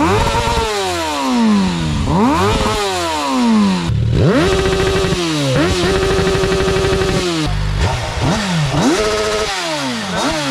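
Honda motorcycle engine, freshly started, revved over and over: each blip climbs quickly and sinks slowly back toward idle, about half a dozen times. In the middle it is held at higher revs for a couple of seconds.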